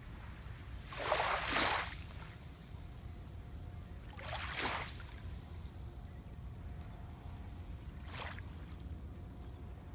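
Water splashing or sloshing three times, the first and longest about a second in, over a steady low rumble.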